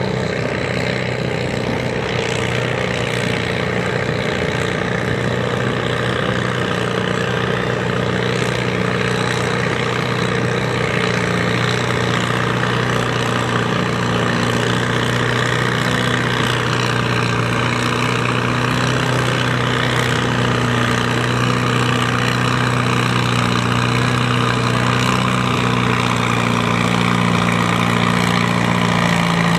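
Antique Farmall tractor engine idling steadily at low throttle, growing slightly louder toward the end.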